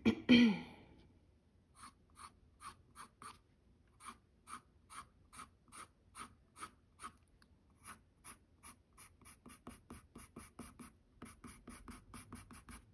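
Colored pencil scratching on toned mixed-media paper in short, light flicking strokes, laying in fur: about two to three strokes a second, quickening to about four a second near the end. A brief breathy vocal sound with a falling pitch comes right at the start and is the loudest thing heard.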